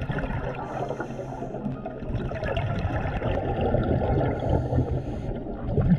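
Underwater bubbling and gurgling from a scuba diver's exhaled breath through the regulator, muffled as heard through the camera housing, with a faint hiss twice.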